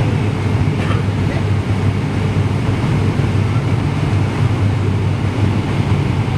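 Steady low rumble of a jet airliner heard from inside the passenger cabin: engine and airflow noise with an even hiss above it.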